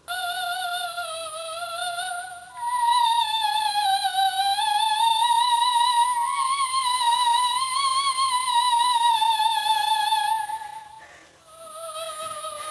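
A high, operatic-style singing voice holding long notes with heavy vibrato: a short note, then a much longer higher note that wavers up and down for about eight seconds, then a lower note near the end.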